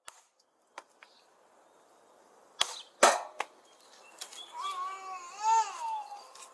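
A digging tool striking hard garden soil: two sharp thuds about two and a half and three seconds in, then a lighter knock. Near the end an animal gives high calls that rise and fall in pitch.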